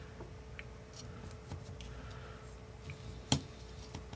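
Small clicks and taps of metal tweezers holding a motor wire against a solder pad on a drone's ESC board, with one sharp click a little past three seconds in. A faint steady hum runs underneath.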